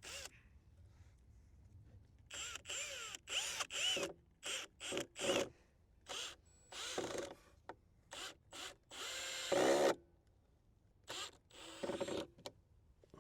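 Power drill driving screws into a wooden cover board in a string of short trigger bursts, the motor speeding up and slowing with each one. A longer, loudest run comes about nine seconds in, and a few more short bursts follow.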